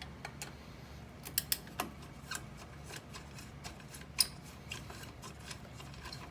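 Scattered sharp clicks and light taps of tools and small metal parts being handled while screws are taken out of a car's fog light housing. The clicks come irregularly, with the loudest a little after a second in and again about four seconds in.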